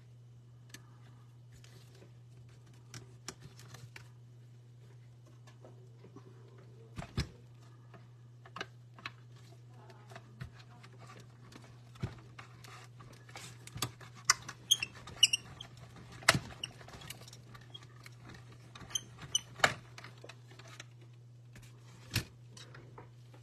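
Hands handling paper-crafting pieces and clear plastic on a desk: scattered taps, clicks and light plastic rustles, busiest in the middle, over a steady low electrical hum.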